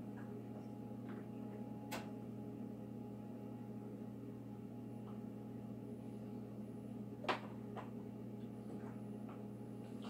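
Kitchen room tone with a steady low hum, broken by a few sharp clicks and knocks of small containers being handled on the counter, the loudest about seven seconds in.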